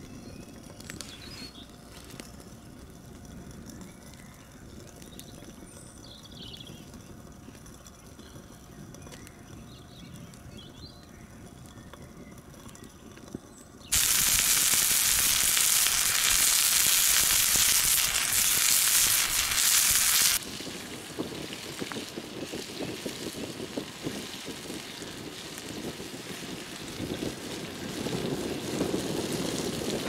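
Wood campfire crackling quietly; about halfway through, steaks sizzle loudly in a frying pan over the fire for about six seconds, the sizzle starting and stopping abruptly.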